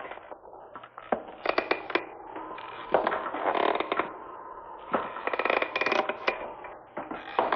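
A sound effect from a 1960 Halloween sound-effects record: irregular sharp cracks and snaps over a creaking, scraping bed, with clusters of cracks about a second and a half in, around three seconds in, and again between five and six and a half seconds.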